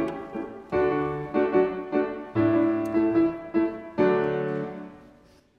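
Classical chamber music: a series of full chords, each starting sharply and then fading, the last one dying away to nothing near the end.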